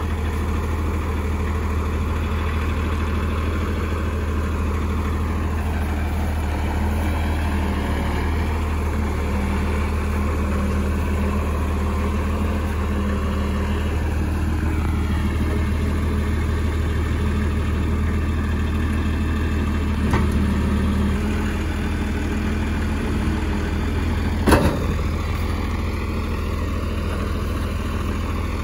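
John Deere farm tractor's engine running steadily with a low, even hum while its front loader lifts a steel grain bin on a strap. A single sharp knock sounds near the end.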